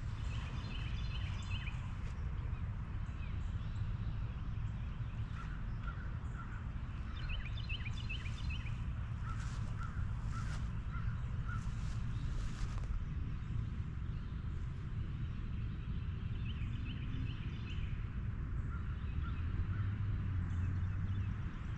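Small birds chirping outdoors in short runs of quick high notes, three times, over a steady low rumble of wind on the microphone. A few soft footsteps through grass sound in the middle.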